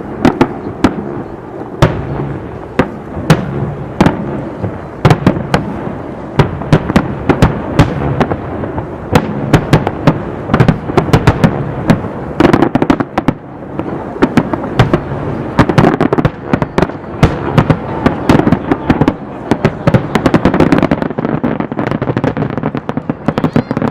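Aerial fireworks display: shells bursting in quick succession, many loud sharp bangs a second over a continuous crackling din.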